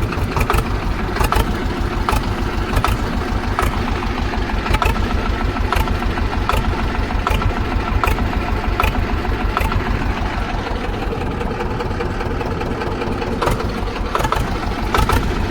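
Swaraj 724 tractor's two-cylinder diesel engine running steadily out of its silencer, freshly started, with sharp clicks recurring about every three-quarters of a second.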